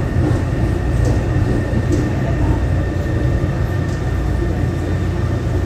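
Taipei Metro train running, heard from inside the car: a steady low rumble with a faint steady whine above it.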